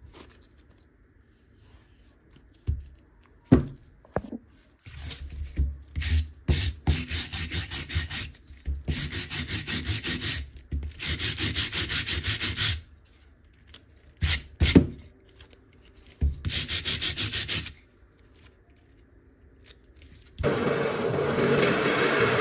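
Stiff-bristled hand brush scrubbed back and forth over the bark of a small rowan log round, in several long runs of quick strokes, with a few knocks as the log is handled. Near the end a drill press starts up and runs steadily, boring into the log.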